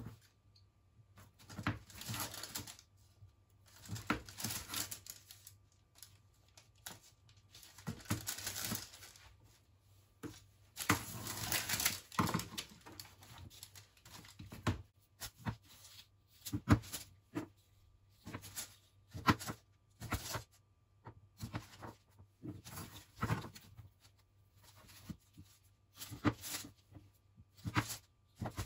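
Large kitchen knife cutting set chocolate-topped peanut slices on baking paper: scraping strokes of the blade through the hard chocolate and across the paper in the first half, then a string of separate sharp clicks as it cuts and taps down. Baking paper rustles as the pieces are moved.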